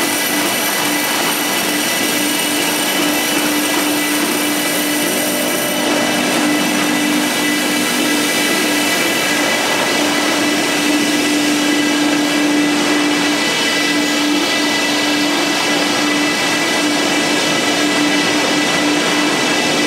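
XPS foam board production line machinery running: board trimming saws, motors and dust extraction making a loud, continuous mechanical whir with a steady hum.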